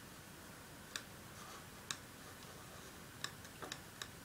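Scattered sharp clicks of a computer's pointer button over a faint hiss. There are two about a second apart, then a quicker group of clicks a little past three seconds in.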